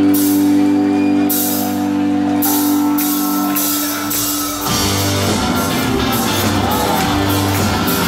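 Live rock band playing, heard from the audience: held, sustained chords for the first half, then about halfway through the full band comes in with a pulsing bass and drum beat.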